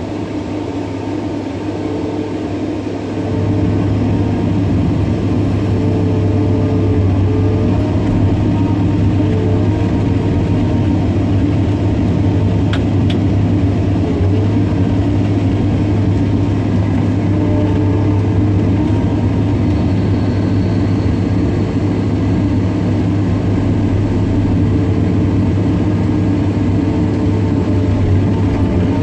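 Caterpillar 318D excavator's diesel engine running steadily as the hydraulics work the stone grapple, heard from the operator's cab; the engine gets louder about three seconds in and then holds steady.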